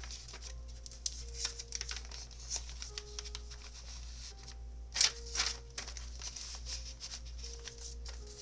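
Paper pages of a handmade junk journal being handled and turned, rustling and crinkling, with a louder page flip about five seconds in. Soft background music with held notes plays underneath.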